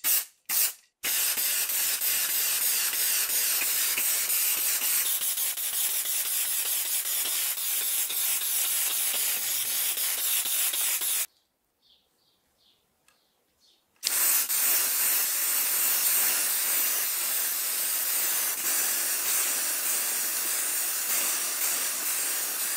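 Aerosol spray paint can hissing: two short spurts, then a continuous spray for about ten seconds, a pause of about three seconds, and another long continuous spray from about two-thirds of the way in.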